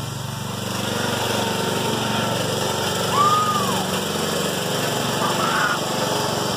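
Riding lawn mower's small engine running steadily. A short high call rises and falls about three seconds in.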